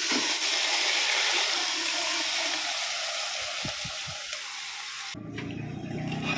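Octopus sizzling in a hot pot with garlic and onion: a steady frying hiss with a few soft knocks in the middle. About five seconds in it cuts off suddenly and background music takes over.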